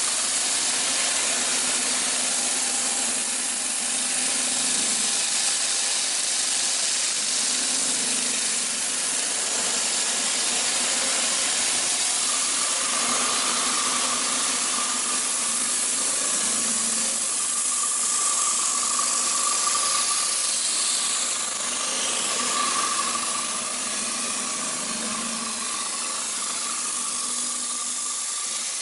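Giddings & Lewis PT1800 CNC horizontal boring mill running: a steady hiss with a low hum, and a higher steady whine that comes in about twelve seconds in and holds.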